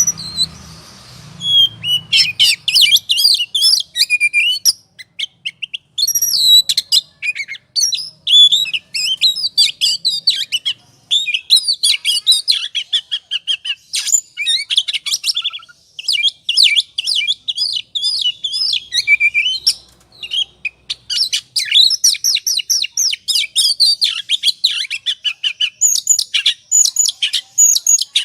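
Oriental magpie-robin (kacer) singing in the excited 'ngobra' style: a fast, unbroken run of varied high chirps, trills and whistles with a few short pauses. It is a lure song of the kind used to provoke other kacers into singing.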